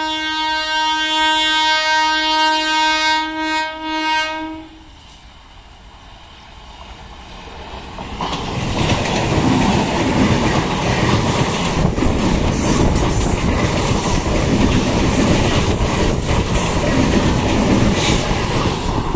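Electric multiple-unit (EMU) local train sounding its horn, one long held note that stops about five seconds in. After a short lull, from about eight seconds in, the train passes close by with loud, continuous wheel and rail noise.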